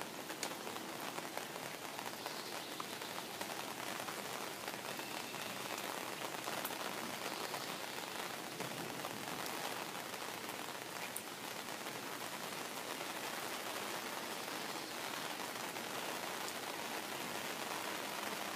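Rain falling on a pond's water surface: a steady even hiss with a few sharper drop ticks.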